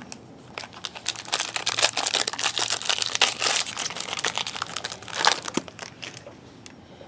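Trading-card pack wrapper being torn open and crinkled: a dense crackle from about a second in until near the end.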